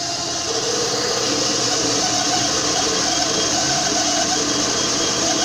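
Metal lathe running steadily at about 1360 RPM, its spindle and three-jaw chuck spinning freely: a steady mechanical hum with several even tones over a hiss.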